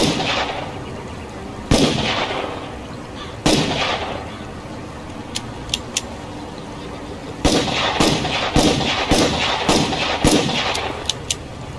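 Revolver gunshots: three single shots about a second and three-quarters apart, each ringing out, then a few faint clicks, then a quick string of shots at about two a second.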